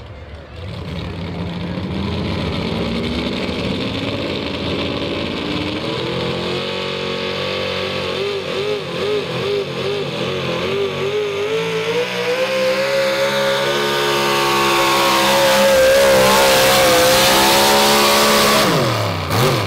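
Engine of a 6,200 lb 4x4 pulling truck running flat out as it drags a weight sled, its revs climbing and wavering up and down through the pull. Near the end the revs fall away sharply as the pull ends.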